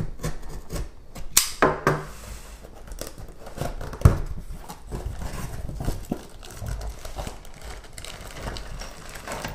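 A cardboard box being slit open with a utility knife and its end flaps torn and pulled open: scraping, tearing and tapping of cardboard, with a sharp knock about four seconds in. Near the end, plastic wrapping rustles as parts are handled inside the box.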